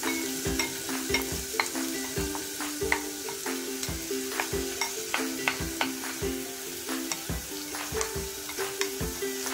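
A wooden spoon scrapes and knocks tomato purée out of a ceramic bowl into a steel pot, with a light sizzle from the shallot, garlic and ginger paste frying in oil. The spoon clicks irregularly against bowl and pot, over quiet background music.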